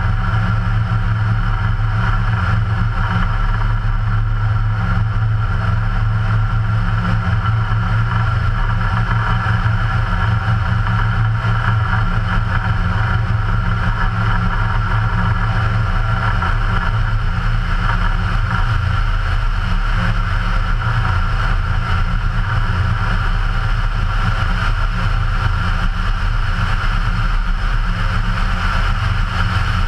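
The Ikarus C42 microlight's 100 hp Rotax 912 flat-four engine and propeller droning steadily in cruise flight.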